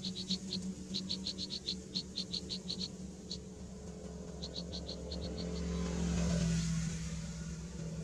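Rapid bursts of short, high-pitched chirps, about five or six a second, over a steady low hum. Near the end a broad rushing sound swells and fades.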